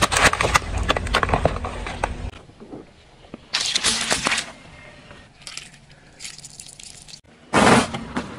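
A car tyre crushing a series of objects one after another. First comes a long cracking crunch over a low rumble for about two seconds, as a frozen block gives way. About a second and a half later there is a short burst of squashing as the tyre rolls over water-gel beads, then fainter crackles, and near the end a loud, brief crunch.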